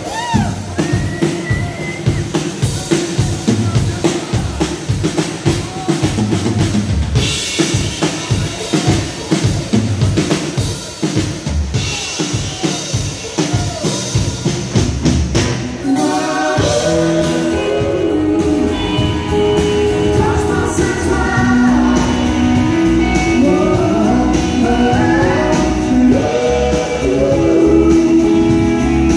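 Live rock/country band playing: drum kit driving a steady beat with electric and acoustic guitars. About halfway through the full band comes in louder and fuller, with singing and held notes over the drums.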